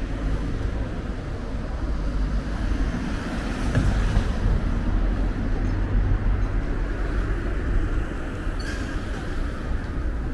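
A car driving past, its tyre and engine sound swelling to a peak about four seconds in, over a steady hum of street traffic.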